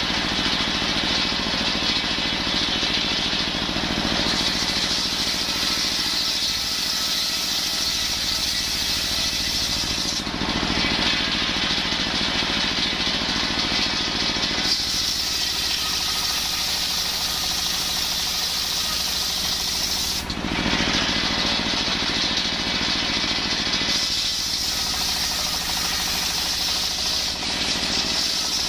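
Table circular saw driven by a single-cylinder stationary diesel engine, its blade ripping coconut-wood planks into rafter stock. The engine and spinning blade run steadily, and the tone of the sound shifts every five seconds or so as cuts start and end.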